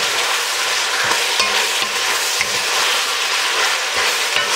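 Bacon, onion, garlic and habanero sizzling in a hot pan on high heat, with a utensil stirring through it in short, irregular strokes as the pan heats back up.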